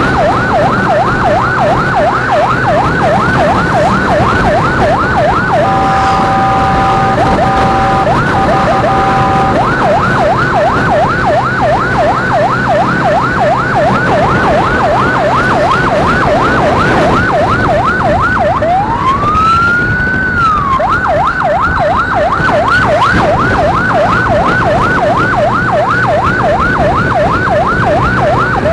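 Electronic emergency siren on a fast yelp, about three rising-and-falling sweeps a second, broken for about four seconds near the start by a steady multi-tone horn blast, and about two-thirds through by one slow rise-and-fall wail before the yelp resumes. Road and wind noise runs underneath.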